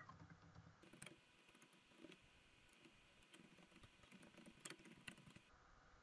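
Faint computer keyboard typing: scattered soft keystrokes.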